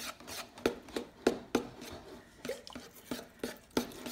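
Spoon stirring slime mixture (glue and activator) in a plastic mixing bowl, clicking and scraping against the bowl in an uneven rhythm of about three knocks a second.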